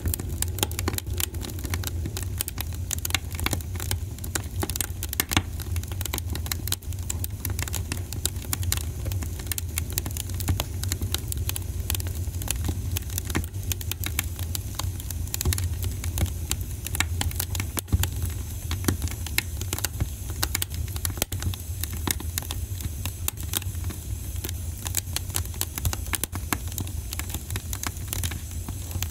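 A steady low hum with constant fine crackling clicks.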